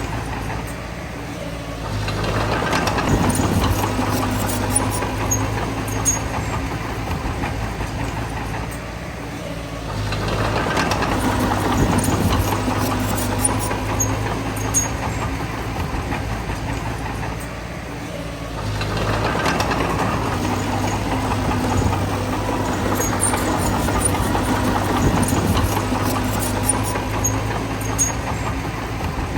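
Heavy bulldozer diesel engine working: it swells under load three times, each push lasting about eight seconds, and eases back between them. Small high clicks and clinks from the tracks run through it.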